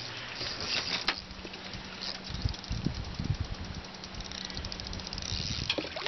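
A hooked stingray splashing at the water's surface beside the boat near the end, over a steady hiss and faint low hum, with a few dull knocks about two to three seconds in.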